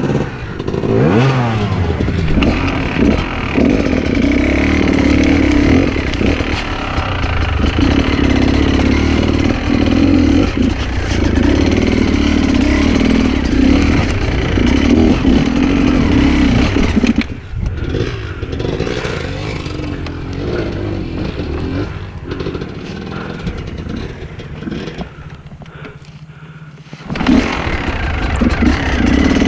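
Enduro dirt bike engine running under load, its revs rising and falling. A little past halfway it eases off to a low, quieter running, and near the end it picks up hard again.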